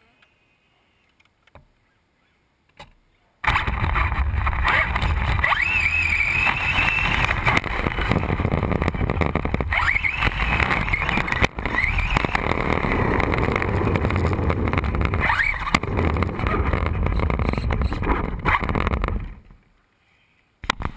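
Traxxas Bandit VXL RC buggy's brushless electric motor whining up and down in pitch as it accelerates, with its tyres hissing and splashing through standing water. It starts suddenly after a few seconds of near silence and stops near the end.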